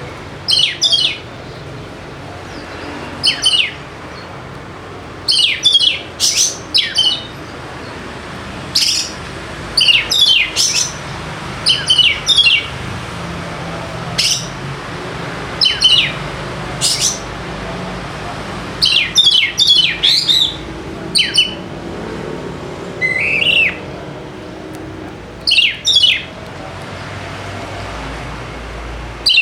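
Oriental magpie-robin (kacer) singing: short, loud phrases of sharp, fast-sliding high notes, coming every one to three seconds with brief pauses between them, over a steady low background noise.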